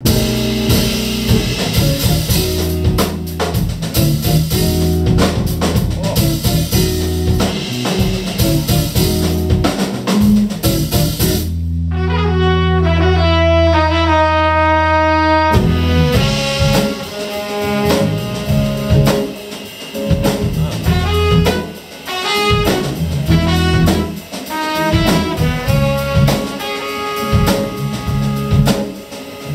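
Live band playing without vocals: drum kit, electric guitar and bass under saxophone and trumpet lines. About twelve seconds in the drums drop out for a few seconds while the horns hold notes over a sustained bass note, then the full band comes back in.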